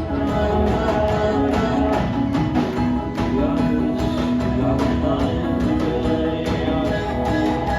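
A rock band playing live, with strummed guitars carrying the music over drums.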